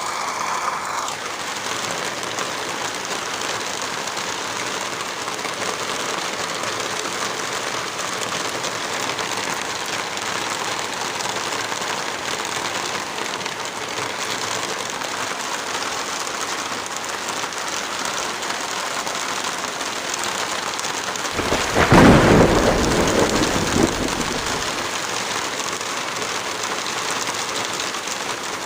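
Steady heavy rain falling, with a single loud rumble of thunder about three quarters of the way through that dies away over a few seconds.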